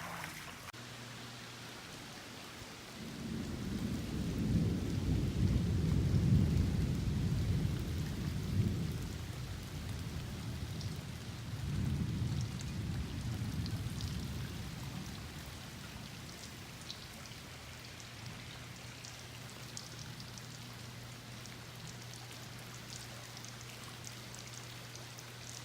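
Rain falling, with scattered drops ticking, and two long low rolls of thunder: the first a few seconds in and lasting several seconds, the second shorter, a few seconds later. A steady low hum runs underneath.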